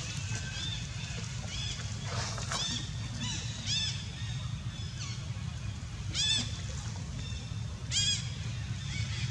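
Short, high-pitched animal calls, each rising and falling in pitch, heard five or six times at irregular intervals over a low, steady rumble.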